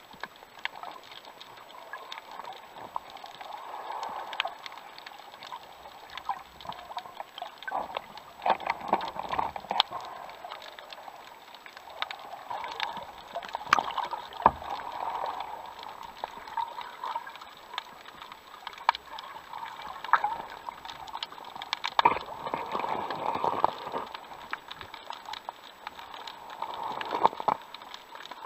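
Muffled underwater noise heard through a camera's waterproof housing: water rushing and sloshing past it in several swells, with scattered sharp clicks throughout.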